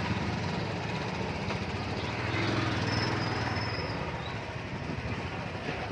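Motorcycle engine running steadily on the move, with a dense rumble of traffic.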